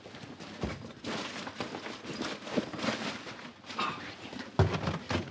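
Footsteps on a hard floor with irregular taps, knocks and rustling as a man moves about and handles things, with a few heavier thumps near the end.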